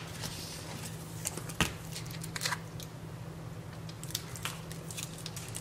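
Scattered small clicks and crackles of food being handled and eaten, with a stronger click about a second and a half in, over a steady low hum.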